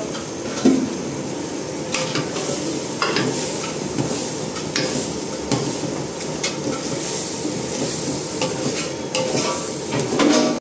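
Metal ladle stirring thick masala gravy in a large aluminium pot, scraping and knocking against the pot several times, over a steady sizzling hiss of the cooking.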